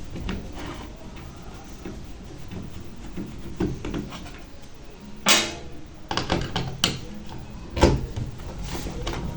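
Clicks and knocks of hands working on a microwave oven's control board to take it out, with a brief loud scrape about five seconds in and a sharp knock near eight seconds.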